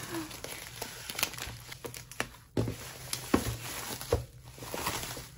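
Packaging crinkling and rustling as the contents of an opened cardboard box are rummaged through, with scattered clicks and a few light knocks.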